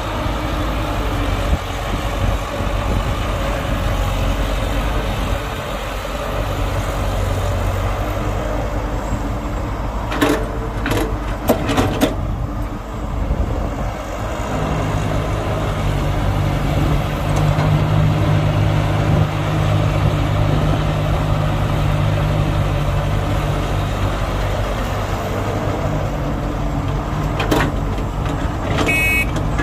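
Heavy diesel engines of an excavator and dump truck running steadily. A few metallic clanks come about a third of the way in, and the engine note strengthens and rises about halfway through, as under load.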